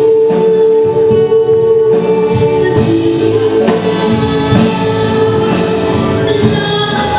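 Two women singing a Christian song into microphones over instrumental accompaniment.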